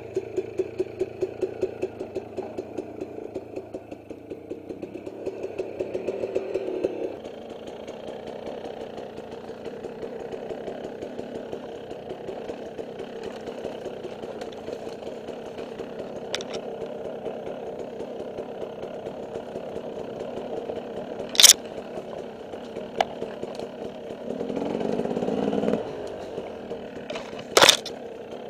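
Dirt bike engine ticking over with an uneven, pulsing beat for the first several seconds, then running steadily as the bike is ridden, with a brief burst of revving a few seconds before the end. Two sharp cracks cut through, one about two-thirds of the way in and one near the end.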